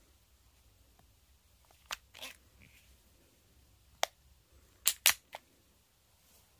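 Marushin M10 Military & Police gas revolver's action clicking as it is handled and aimed: a couple of soft clicks, then a single sharp click about four seconds in, then two loud snaps a fifth of a second apart about five seconds in.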